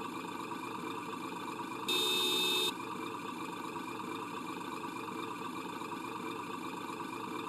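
Radio-controlled model truck running steadily at an even level, like an engine idling, with a louder pitched sound lasting under a second about two seconds in.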